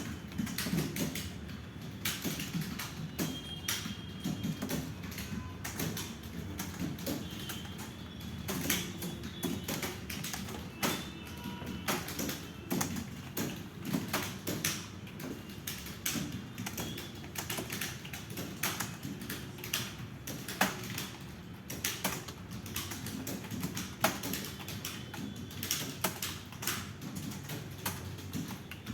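Typing on a computer keyboard: a quick, irregular run of key clicks that goes on throughout.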